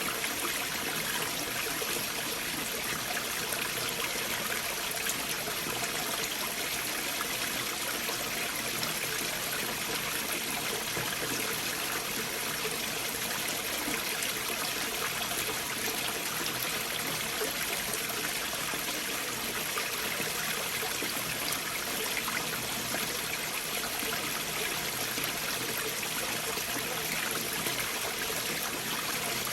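Stream water flowing and trickling through gaps beneath large boulders, a steady, even rush without breaks.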